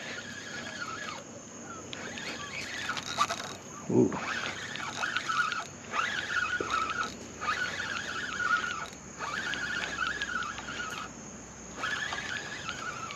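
A Daiwa baitrunner reel's free-spool clicker ticking fast as line is pulled off in repeated runs of about a second, with short pauses between them: the sign of a fish taking the bait on the rod.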